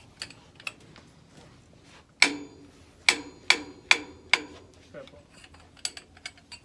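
Metal hand tools knocking and clicking on the valve parts of an 80 bar high-pressure air compressor being taken apart: a sharp metal knock about two seconds in, then four evenly spaced knocks a little under half a second apart, with lighter ticks between.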